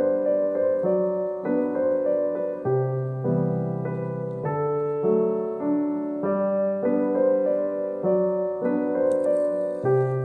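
Background piano music: a gentle melody over chords that change in a steady, even pulse. About nine seconds in, a faint papery rustle joins it as masking tape is peeled off the paper.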